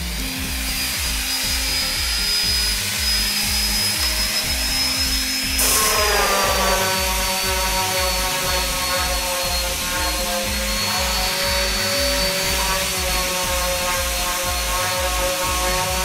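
A power sander running on rough pallet wood with 40-grit paper, a steady high whine whose sound changes about six seconds in, under background music with a steady beat.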